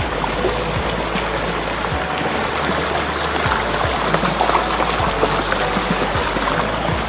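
Shallow river running over rocks and gravel, a steady rush of water, with faint music underneath.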